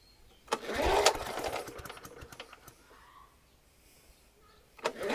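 Hayterette lawnmower's petrol engine being pull-started. About half a second in, a cord pull spins the engine over with a whirring rattle that dies away over a couple of seconds without the engine catching. A second pull starts near the end.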